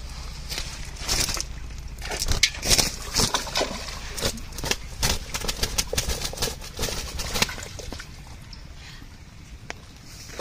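Freshly netted fish flapping and thrashing on wet grass and in a cast net: quick, irregular slaps and rustles that thin out near the end.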